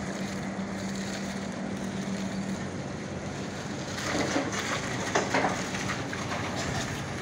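ACE AF15E battery-electric forklift driving across the yard, with a steady hum that stops about two and a half seconds in. From about four seconds in, for a second and a half, its tyres crunch and crackle over loose gravel.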